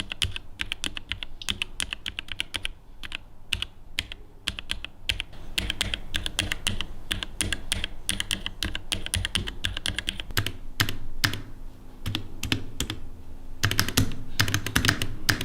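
Fast typing on a compact 65% SIKAKEYB SK3 mechanical keyboard: a dense, steady run of key clacks with a few brief pauses, getting louder near the end.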